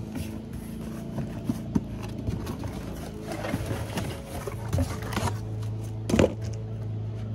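Steel tire-changer parts being handled in a cardboard box: scattered light knocks and rustles, with a louder knock about six seconds in. Under them runs a steady low engine drone from landscaping equipment, which gets louder about five seconds in.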